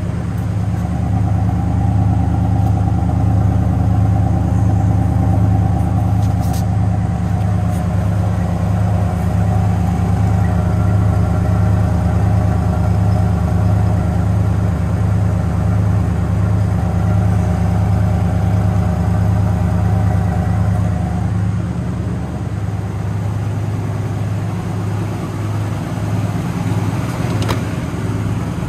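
1955 Ford F-250 pickup's engine idling steadily with an even pulse. It gets a little quieter and smoother about three-quarters of the way through.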